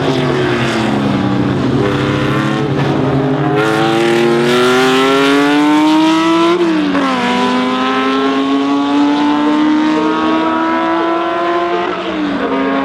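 Historic racing car engine at high revs: the pitch falls at first, then climbs steadily under acceleration, drops sharply with an upshift about six and a half seconds in, and climbs again to another upshift near the end.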